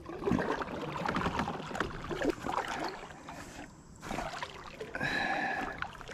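Water splashing and dripping around a small boat being paddled. About five seconds in there is a brief, higher-pitched sound with a steady pitch.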